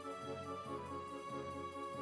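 Quiet background music: a repeating lower note pattern about four times a second under a held melody line that changes note a couple of times.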